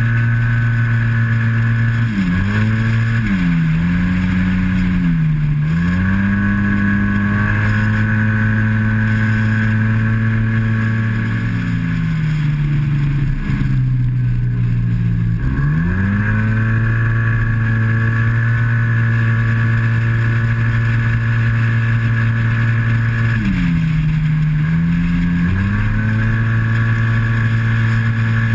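Yamaha TMAX parallel-twin maxi-scooter engine at high revs, its pitch held nearly level by the automatic CVT. Several times the note dips as the throttle is rolled off for corners, then climbs straight back to the same steady pitch.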